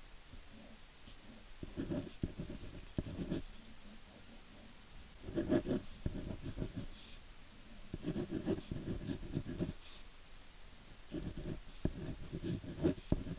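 Scribbling strokes of a drawing stylus, in four bursts of about one and a half seconds each with short pauses between them.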